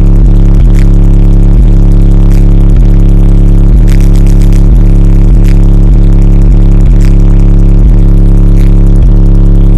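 Bass-heavy music played loud through a 12-inch Droppin HZ Hotel series subwoofer, heard inside the car cabin, with deep sustained bass notes and a regular thumping beat. The bass is loud enough to clip the recording.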